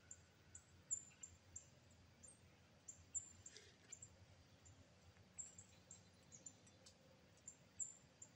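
Near silence in the woods, broken by faint, very high, short chirps that come irregularly a few times a second, with a couple of soft ticks.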